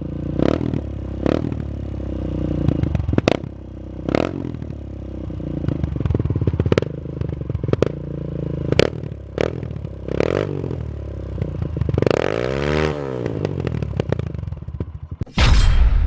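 Dirt bike engine revving and running, with several sharp cracks and one rise and fall in pitch about two-thirds of the way through. Near the end, a loud rushing sound effect cuts in.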